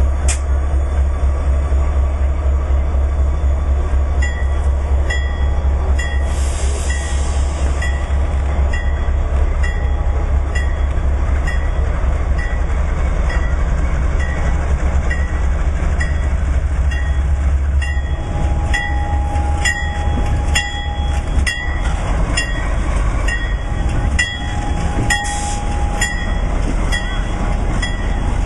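Norfolk Southern diesel locomotive running with a heavy low rumble as it slowly moves past, pulling C&O 614's tenders, with a regular high ping a little under twice a second from about four seconds in. In the second half the wheels click over the rail joints.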